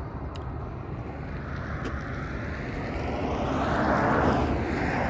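A road vehicle passing close by on the highway, its noise swelling to a peak about four seconds in and starting to fade.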